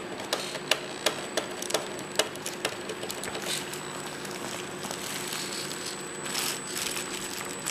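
Everest-10 1/10 scale RC rock crawler clambering over a tire, giving a run of sharp clicks and knocks, about two or three a second, over the first few seconds. A faint steady whine runs underneath, followed by softer scuffing noises.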